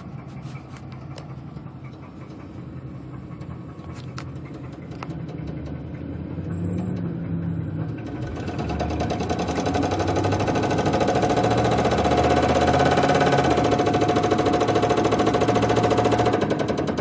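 Chevrolet Caprice engine running with a rapid, rhythmic knock that the owner puts down to a pushrod, after the engine was over-revved in second gear. It grows much louder about halfway through.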